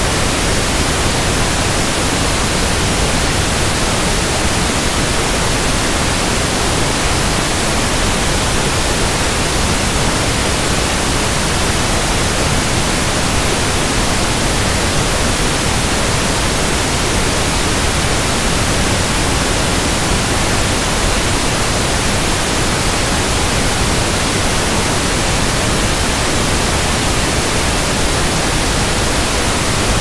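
Pink noise: a steady, even hiss spread across all pitches, with no change in level.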